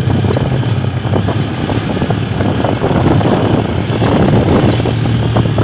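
A vehicle's engine running with a steady low drone while on the move, with wind and road noise rushing over the microphone.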